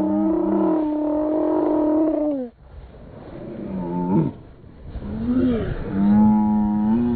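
Two people, a woman and a man, screaming long drawn-out screams together as their sled runs down the hill toward the jump. The screams break off about two and a half seconds in, a short falling cry follows, and the screaming starts again near the end.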